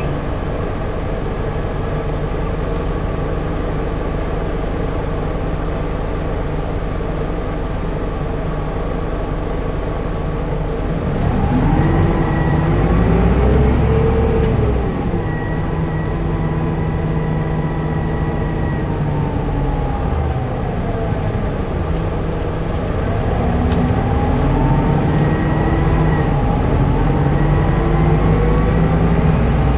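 City bus engine idling steadily, then about eleven seconds in revving up as the bus pulls away. The pitch rises, eases back with a gear change, dips again around twenty seconds and climbs once more near the end as the bus accelerates. Heard from inside the bus.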